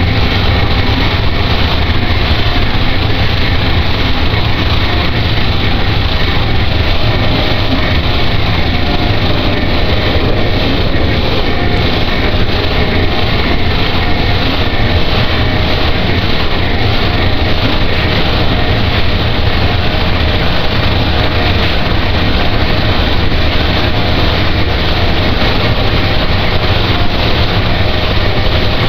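Harsh noise music: a loud, unbroken wall of distorted rumble and hiss, heaviest in the low end, with no beat, melody or pauses.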